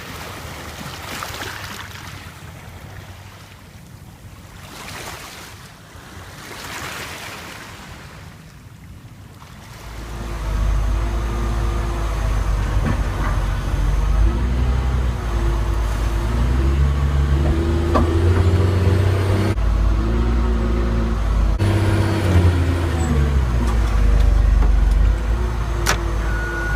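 Gusts of wind on the microphone for about the first ten seconds, then a large motor vehicle's engine running loud and low, its pitch shifting up and down as it goes.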